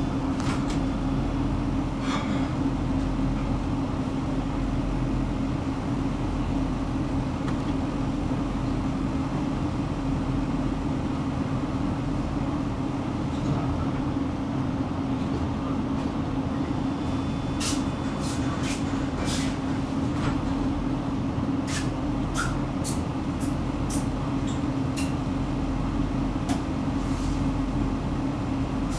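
Tram running with a steady rumble and a constant low hum. From about two-thirds of the way in, a run of sharp clicks comes irregularly for several seconds.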